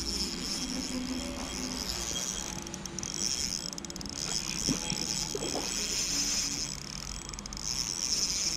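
Spinning reel being cranked steadily, a mechanical whirring with a few light clicks, as a spoon lure is retrieved on an ultralight trout rod.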